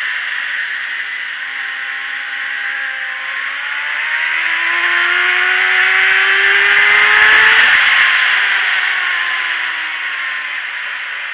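Onboard sport motorcycle at track speed, with heavy wind rush over the camera covering the engine. The engine note climbs under acceleration to its loudest about two-thirds of the way in, then falls away as the rider rolls off.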